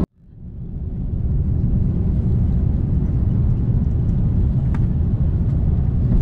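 Steady low rumble inside a jet airliner's cabin as it rolls along the ground after landing, fading in over the first second. A faint click near five seconds in.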